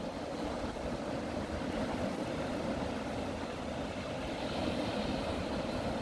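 Steady wash and low rumble of small waves breaking on a sandy beach.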